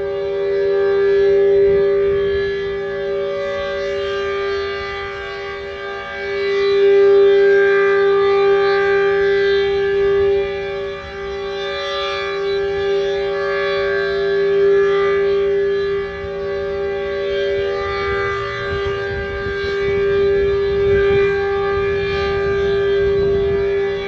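H.O.R. Super Sirex 15 dual-rotor, dual-tone civil defense siren sounding at full speed. Its two notes make a steady, unsettling tritone chord, heard from a distance. The sound swells and fades as the siren head rotates.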